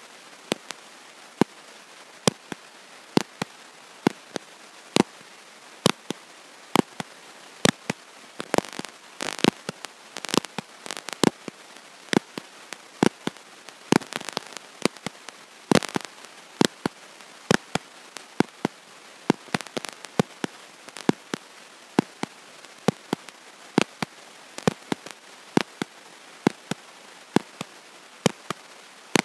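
Faulty audio track: a steady hiss broken by sharp clicks a little under once a second, with denser crackling about a third of the way in and again around the middle. No speech comes through.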